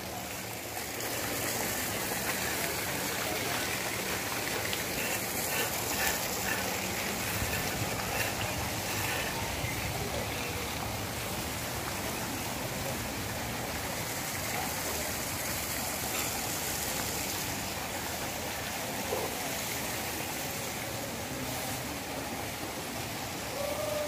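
Water running steadily, a continuous even rush of flowing water.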